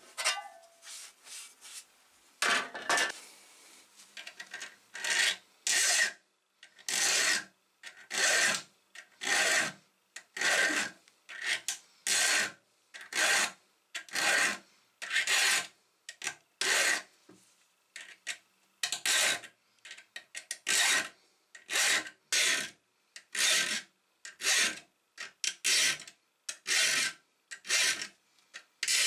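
A hand saw's teeth being sharpened with a file: a steady run of rasping file strokes across the steel teeth, about one a second, beginning about two and a half seconds in.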